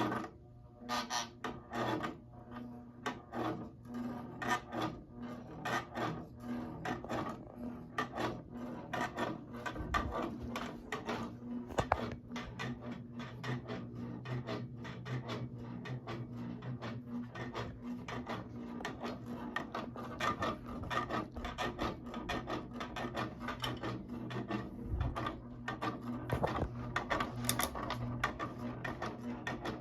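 Hampton Bay Littleton ceiling fan running: a steady motor hum with a fast, repeating rasping tick over it, a rubbing noise that persists though it has been reduced.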